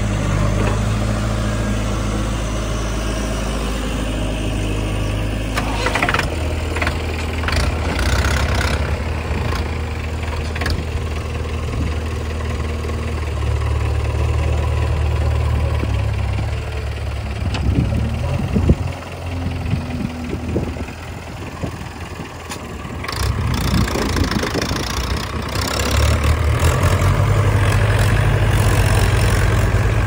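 Diesel engines of a JCB 3DX backhoe loader and a Mahindra 475 DI tractor running steadily, with a few sharp knocks and clatters from the bucket and falling soil during loading. In the last several seconds the engine note rises and holds as the tractor pulls the loaded trolley.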